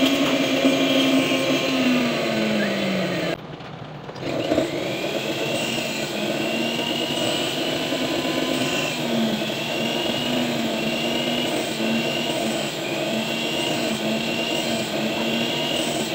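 Rotary tool handpiece spinning a thin cut-off disc against the post of an 18k gold earring, its motor whine sagging in pitch again and again as the disc bites into the metal. The sound drops away briefly a few seconds in, then the whine picks up again.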